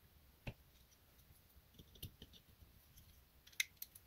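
Faint, scattered clicks and taps of the small parts of a Spyderco Paramilitary 2 folding knife being handled and fitted together by hand: one sharp click about half a second in, a few soft ones around the middle, and two or three sharper clicks near the end.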